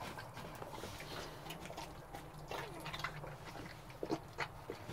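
Mother dog licking and nibbling at her newborn puppies just after whelping: irregular wet licking and mouth clicks, with a few short squeaks.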